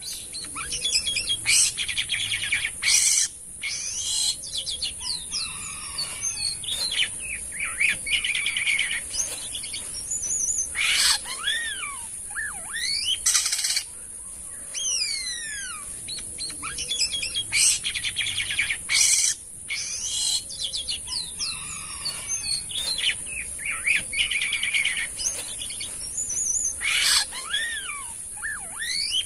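Jalak kapas starling singing a busy, varied chatter of clear whistles, quick sliding notes and short harsh rasping notes, over a steady high hiss. The same passage repeats after about 16 seconds.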